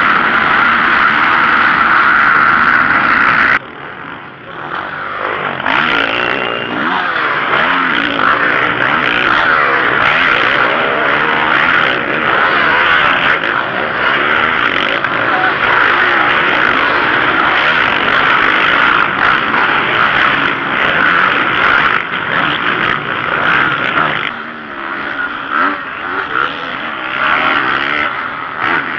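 Motocross bike engines revving hard: a dense roar of the whole pack at first, then bikes rising and falling in pitch as they accelerate, shift and pass. The sound drops suddenly about three and a half seconds in, and again a few seconds before the end.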